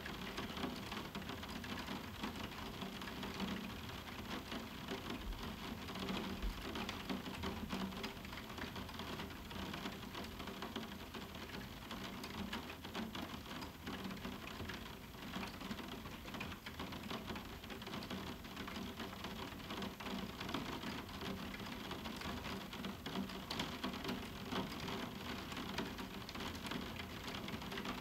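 Moderate summer rain falling on a roof window: a steady, dense rush of drops with countless small ticks on the pane, and no thunder.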